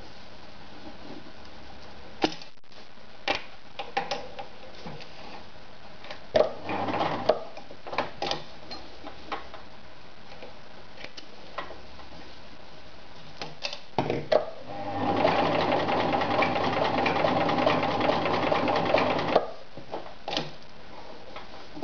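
Riccar 1300 sewing machine stitching through folded denim: a brief run about six seconds in, then a steady run of about four seconds near the end. Before and between the runs come scattered clicks and knocks as the fabric and the machine's parts are handled.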